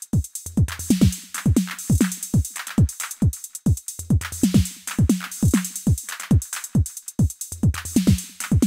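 Electronic music with a fast, regular drum-machine kick beat and bright cymbal hiss above it.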